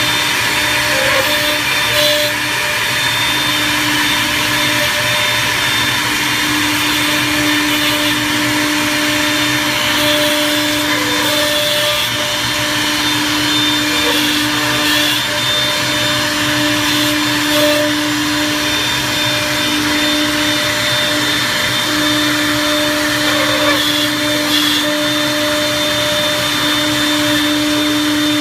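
Three-spindle CNC mortising machine running, its high-speed electric spindles whining steadily as router bits cut slot mortises into wooden strips. A low hum under the whine breaks off and returns several times.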